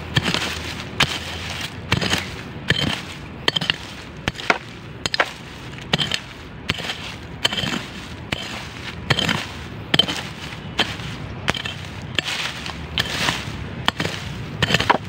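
A hoe chopping into soil again and again, one or two strikes a second, with earth scraping and crumbling between the strikes: digging out a metal detector target.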